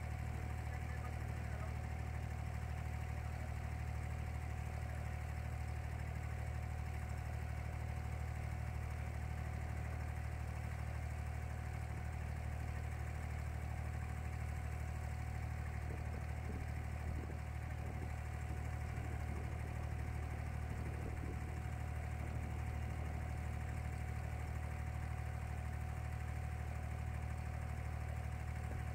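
Inboard engine of a wooden abra running steadily under way, a constant low drone.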